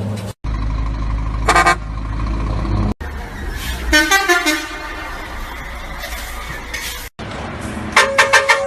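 Vehicle horns in several short clips cut together. A brief horn blast comes first, then a multi-tone horn playing a falling run of notes, and near the end about five quick toots in a row.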